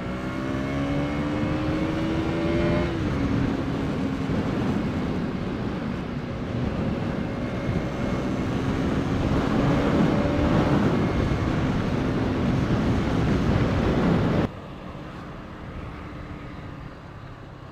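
Motorcycle engine running under way, with wind rush on an onboard camera: the engine note rises for about three seconds, dips briefly, then holds fairly steady. About fourteen seconds in, the loud rush drops away suddenly to a much quieter engine sound.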